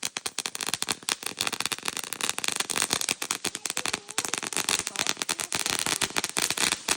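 A string of firecrackers going off, a fast unbroken run of sharp pops and crackles.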